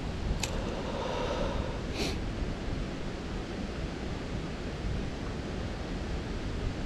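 Wind buffeting the microphone over a steady outdoor hiss, with two short clicks about half a second and two seconds in.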